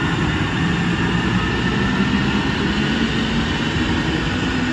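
Sound Transit Link light rail train (Kinkisharyo cars) running past the platform: a steady noise of wheels on rail with a faint steady whine.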